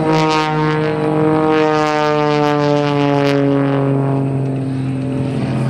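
Extra 300S aerobatic monoplane's propeller and six-cylinder Lycoming engine droning in flight, a steady loud drone that slowly falls in pitch.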